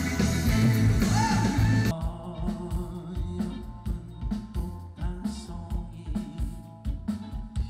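Live band music. The full band plays loudly, then about two seconds in drops to a quieter backing with a steady drum beat.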